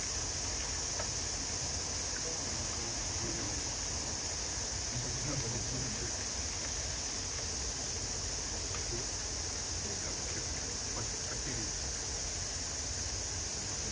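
Steady outdoor summer ambience dominated by a continuous high insect chorus, with faint murmurs of distant voices.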